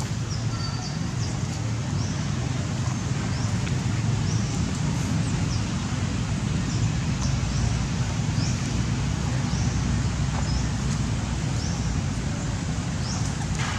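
Outdoor ambience: a steady low rumble with short high chirps recurring throughout.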